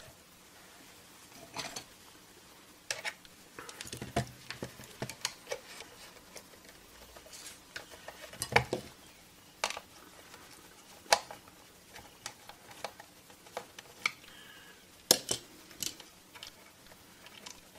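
Plastic multimeter case and its rubber boot being handled and set down on a work mat: scattered light clicks and knocks at irregular intervals, the sharpest about eight and a half seconds in and again near fifteen seconds.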